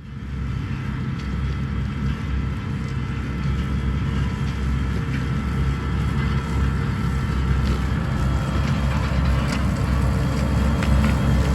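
Large diesel harvesting machinery running steadily under load, with scattered clicks and rattles, slowly growing louder.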